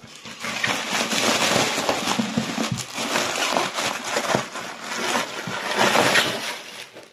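Plastic packaging crinkling and rustling as a plastic bag and bubble wrap are pulled out of a cardboard postal tube: a dense, rapid crackle that keeps going with the handling.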